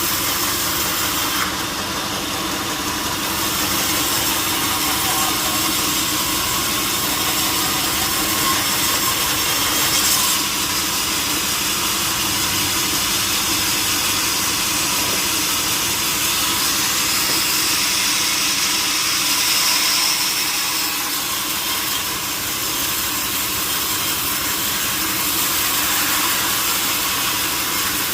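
Power saw running steadily and cutting through a large tree trunk, a loud, even machine noise with a sawing hiss that barely changes in level.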